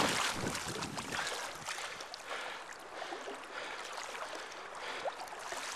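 River water splashing and trickling, loudest in the first second or so and then settling into a steady babble of flowing current.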